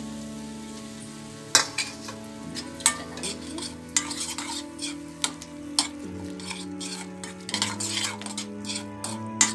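Metal spoon stirring and scraping through mashed potato chokha in a kadhai over a lit gas flame, with a light sizzle. Sharp clinks of the spoon against the pan start about a second and a half in and come repeatedly.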